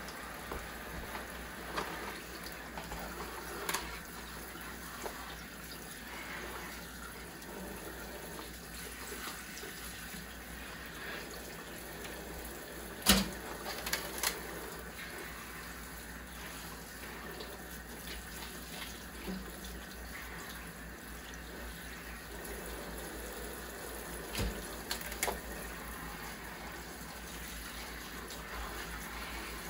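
Kitchen faucet running steadily into a stainless-steel sink as bok choy is rinsed by hand under the stream. A few sharp knocks come through the water noise, the loudest about halfway through and a pair later on.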